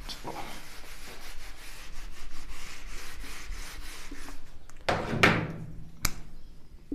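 Whiteboard being wiped clean with a hand-held eraser: a run of quick rubbing strokes across the board, with two louder swipes about five seconds in and a sharp knock just after six seconds.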